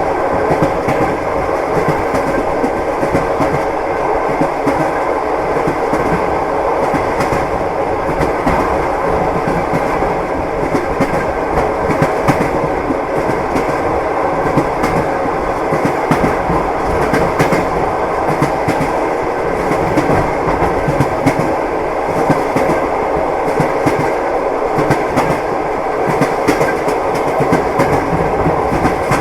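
Train running along the rails, its wheels clicking and knocking over the rail joints in a steady, unbroken clatter.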